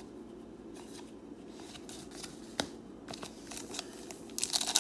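Baseball trading cards flicked through by hand, with soft swishes and small clicks as the cards slide over one another. Near the end a foil card-pack wrapper crinkles louder as it is handled.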